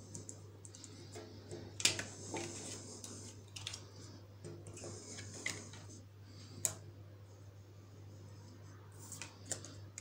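Tarot cards being laid down, picked up and slid on a glass tabletop: scattered light taps and clicks, the loudest about two seconds in, over a steady low hum.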